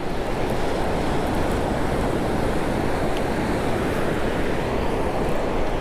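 Steady rush of ocean surf breaking and washing up the beach, mixed with wind buffeting the microphone.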